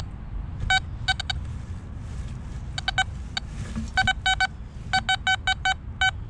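XP Deus metal detector sounding short beeps, all at one pitch, in quick clusters of two to five as the coil passes over targets, over a low steady rumble. Only target signals are heard, with no interference chatter from the nearby power station.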